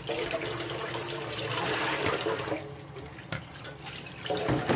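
Water running from a kitchen tap into a sink, swelling for about a second midway, with a short knock near the end.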